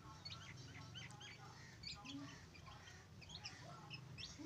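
Chicks peeping: a faint, irregular scatter of short, high chirps over a low steady hum.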